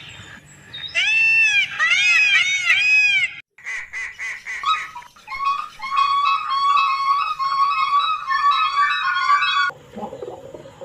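A series of bird calls: a run of repeated rising-and-falling calls, a sudden break, then dense, rapid chirping that cuts off shortly before the end.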